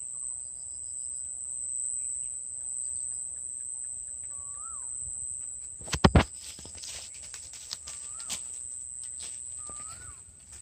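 Outdoor ambience: a steady high insect drone with short, repeated rising-and-falling bird calls. About six seconds in come two sharp, loud knocks, then scattered clicks and rustling.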